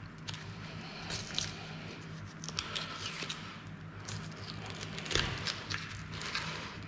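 A boning knife cutting and scraping along the bone of a pork shoulder, with soft wet slicing and scattered small clicks as meat and sinew are freed at the elbow joint. A steady low hum runs underneath.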